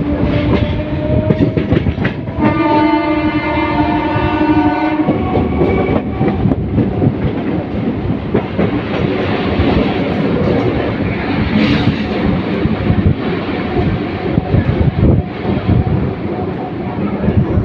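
Train horn sounding in two blasts: one cuts off just after the start, a longer one runs from about two and a half to five seconds in. Under and after the horn the moving train rattles and clatters, its wheels knocking over the rail joints.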